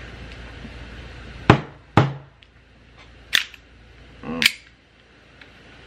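Glock 42 green gas airsoft pistol's slide and takedown parts clicking as the pistol is worked to get the slide off: about four sharp clicks spread over a few seconds. The slide is stiff and not coming off readily.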